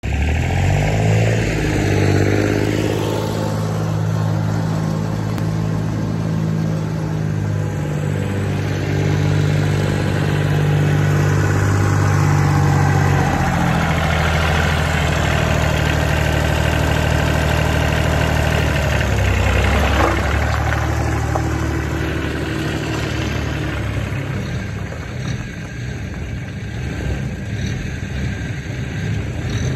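Massey Ferguson 1020 compact tractor's three-cylinder diesel engine running as the tractor drives past. The engine speed shifts about halfway through and again a little later, and the sound fades somewhat near the end as the tractor moves away.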